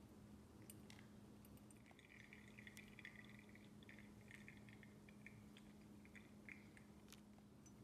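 Thin stream of water from a gooseneck kettle pouring onto coffee grounds in a Chemex paper filter: a faint trickle with fine crackling, starting about two seconds in and stopping about a second before the end.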